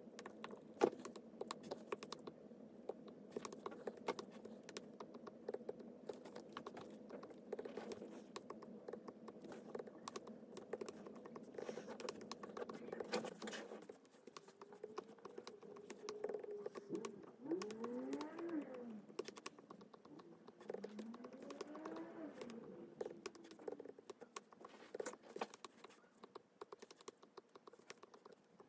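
Stylus tip tapping and scratching on a tablet's glass screen in many quick, irregular clicks, over a low steady hum that stops about halfway through. In the second half a few short tones rise and fall.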